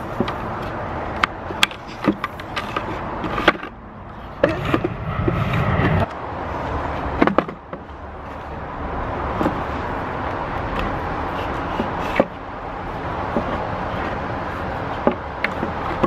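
White plastic tubing being handled and pushed through the holes of a wooden cable reel, scraping and knocking against the wood in scattered clicks and thumps, over a steady low background rumble.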